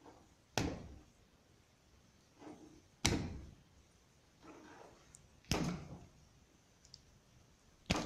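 Combination pliers cutting and stripping electrical wire, four sharp snaps about two and a half seconds apart, with fainter handling and rustling between them.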